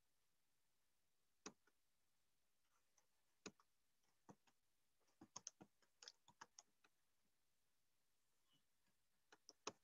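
Near silence: room tone with a few faint, sharp clicks, most of them bunched together around five to six and a half seconds in.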